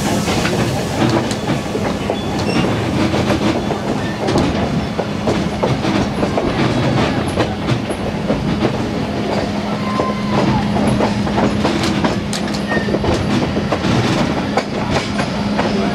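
Vintage railroad passenger coach rolling along jointed track: a steady rumble of the wheels on the rails with many irregular clicks and clacks, and a steady low drone underneath.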